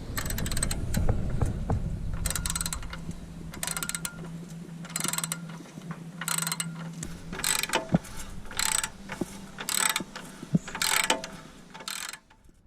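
Ratchet spanner undoing the number plate holder's bolts: about eight short bursts of rapid clicking, roughly a second apart. A steady low hum runs underneath and stops about seven seconds in.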